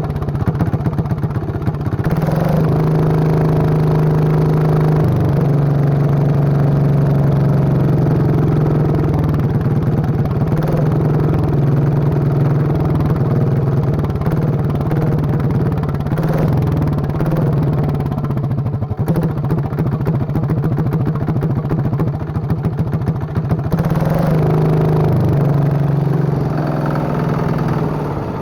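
Small engine running loud with a straight pipe and no muffler, its speed shifting a few times, briefly higher at about 2 s in and again near the end.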